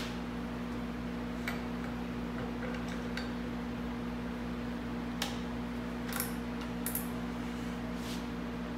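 Steady machine hum in a small workshop, with about half a dozen light clicks and taps as the metal rod of a drilling-guide jig is handled.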